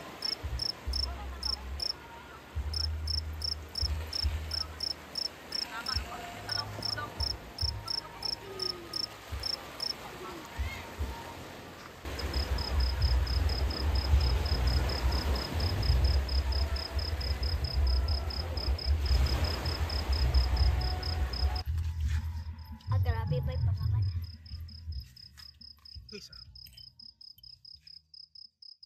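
Crickets chirping with a high, evenly pulsed call, in short runs at first, then a fast steady trill from about twelve seconds in. A loud low rumbling noise runs underneath and is strongest from about twelve to twenty-two seconds.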